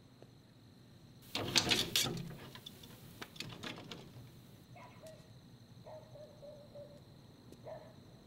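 A wooden lattice door being shut with a clatter of knocks and rattles, then a few faint short animal calls.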